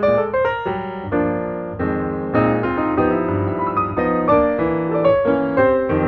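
Background piano music: quick runs of struck notes over held lower chords.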